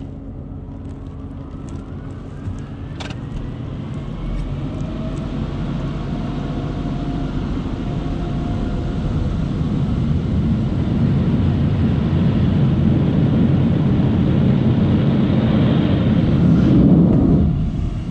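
Touchless automatic car wash running over a truck, heard from inside the cab: a dense rushing noise that grows louder, then drops off sharply near the end.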